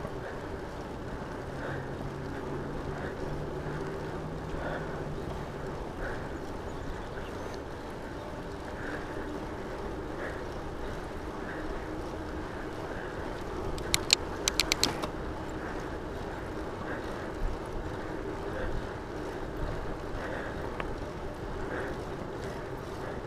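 Rad Rover fat-tyre electric bike rolling along a paved trail: a steady tyre hum and wind rush, picked up through the camera mounted on the bike's frame. A quick cluster of sharp clicks comes about halfway through.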